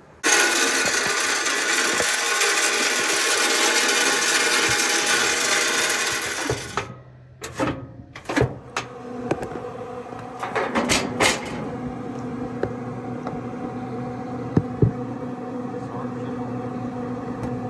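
Pit Boss pellet smoker starting up: its fan and auger motor hum steadily in several even tones, with a few knocks and clicks along the way. A loud, steady rushing noise fills the first several seconds, before the hum.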